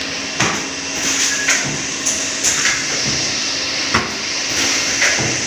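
Four-line pneumatic filling machine running: sharp clacks about once a second over a steady hiss and hum.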